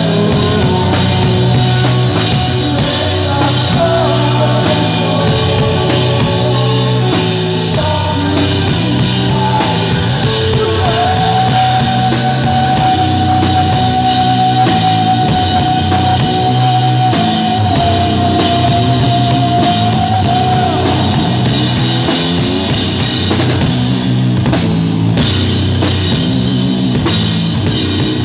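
A rock band playing live and loud: electric guitars over a drum kit, with a long held high note through the middle.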